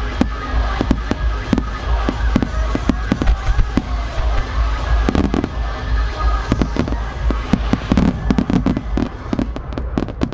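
Aerial firework shells bursting in a fast barrage: sharp bangs, several a second, close together.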